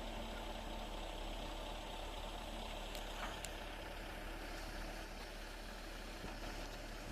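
Heavy machine engine idling steadily with a low hum, with two faint clicks about three seconds in.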